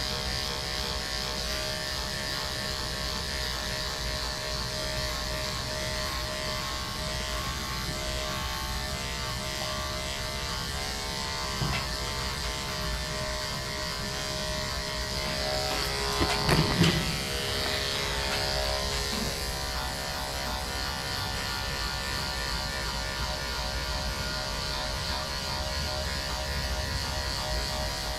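Andis AGC two-speed electric dog clipper with a ceramic 10 blade, buzzing steadily as it shaves through a shepherd mix's thick, partly matted coat. A brief louder sound cuts in about 17 seconds in.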